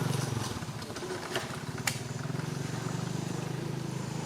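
A small engine running steadily with an even throb; it dips briefly early on, then carries on. A couple of sharp clicks sound between one and two seconds in.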